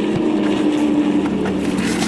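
Twin-engine propeller airplane flying past overhead, its engines giving a steady drone.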